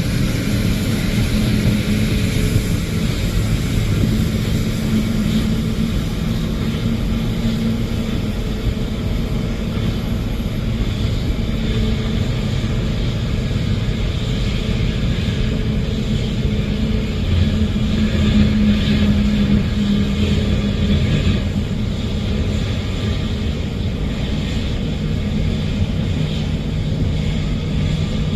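Jet airliner engines running, a steady low rumble with a droning hum.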